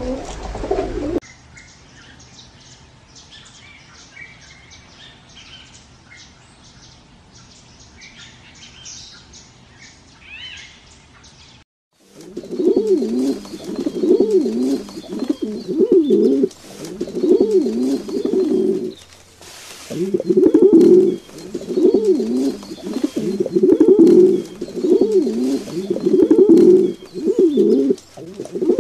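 Pigeons cooing. Low cooing in the first second gives way to about ten seconds of faint high chirping. From about twelve seconds in, loud repeated coos follow one another every second or so.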